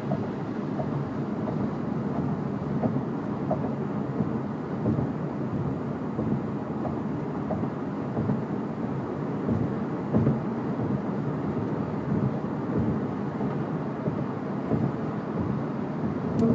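Steady road and wind noise heard inside a car's cabin as it drives at speed, with uneven rises and falls.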